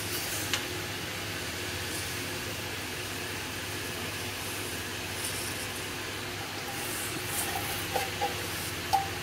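A steady low hum and hiss, with a few light clinks of a metal spoon against the kadhai as sugar goes into the cooking bottle gourd.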